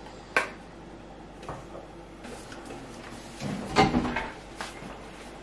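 Kitchen handling sounds as containers are closed and set down on a counter: a sharp click just after the start, a few light knocks, then a louder knock and thud nearly four seconds in.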